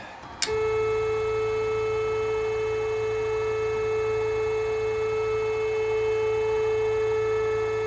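Stepper motor driving a drill press's knee at a low set speed: a click about half a second in, then a steady high whine.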